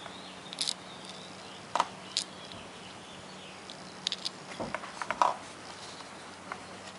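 Scattered light clicks and taps, singly and in small clusters, over a faint steady hum.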